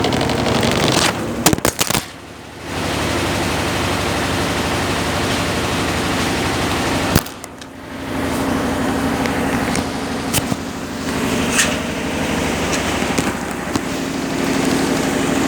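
Consul Facilite 10 kg CWC10 washing machine running its wash stage with a load of blankets: a steady motor hum that cuts out briefly twice, about two seconds in and again past seven seconds, each time just after a click, then resumes.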